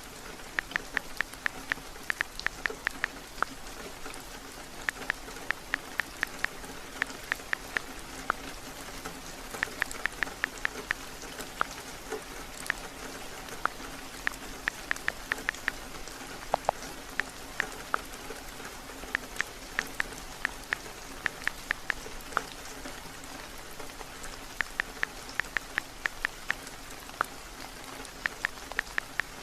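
Steady rain, with short bursts of quick, light taps on a phone's on-screen keyboard, several a second, pausing every few seconds.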